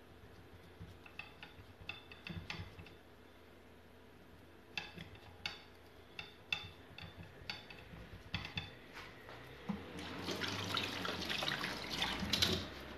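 Scattered light clicks and taps as food is pressed together by hand on a plate, then about ten seconds in a kitchen tap runs into a stainless-steel sink while hands are rinsed, stopping suddenly near the end.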